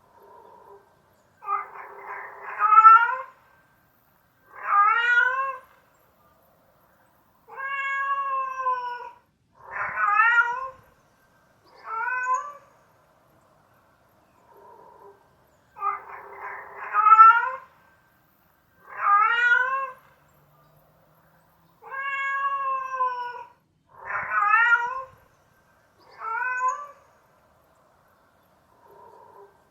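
Domestic cat meowing: a series of separate meows, each a pitched call of about a second that bends in pitch, with short silences between. The same run of about six meows plays again about halfway through.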